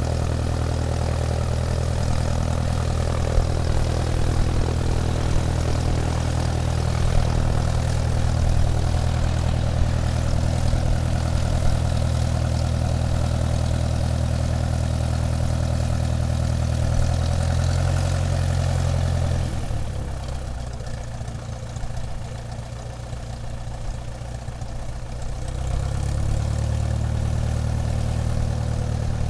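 Airplane taxiing, its engine running with a steady low drone. About twenty seconds in the engine drops lower and quieter, then picks back up about six seconds later.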